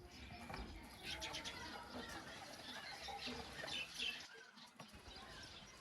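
Birds chirping: many short, overlapping calls, fairly faint.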